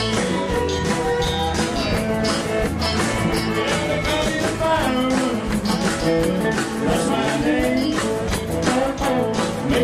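Live rock band playing a song: a steady drum beat with electric guitar and keyboard, and a man singing lead into a microphone.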